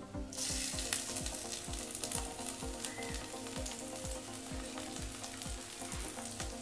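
Chopped onion sizzling in hot mustard oil with cumin seeds in a metal kadai, stirred with a spatula. The frying hiss rises about a third of a second in, as the onion goes into the oil.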